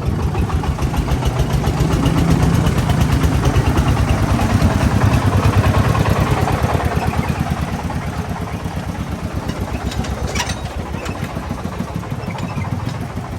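Single-cylinder diesel engine of a công nông farm truck chugging with a fast, even beat. It grows louder until about halfway, then fades, as the truck passes by.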